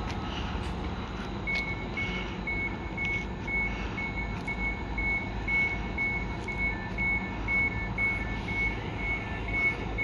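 Electronic warning beeper sounding short, high beeps at one pitch, about two a second, starting about a second and a half in, over a steady low rumble.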